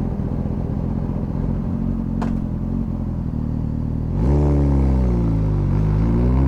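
Suzuki GSX-S1000 inline-four engine running at a steady low idle. About four seconds in it is revved: the pitch jumps up, sinks back, then climbs again.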